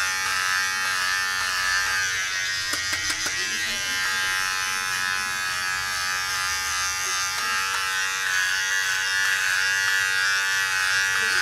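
Braun MGK3220 cordless trimmer running steadily with a buzzing hum as it cuts short scalp hair through a number 1 guard. A few brief clicks come about three seconds in.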